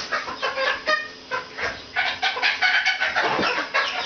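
A flock of juvenile chickens calling: many short, overlapping calls, several of them quick falling notes.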